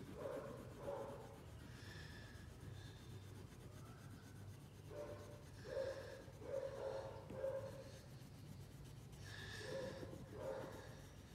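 A crayon scraping back and forth on paper as an area is coloured in. The strokes come in short runs with pauses, busiest from about five to eight seconds in.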